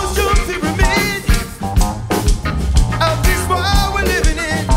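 Live Afro-funk band music: a steady drum-kit beat and bass under a saxophone-led melody with gliding notes.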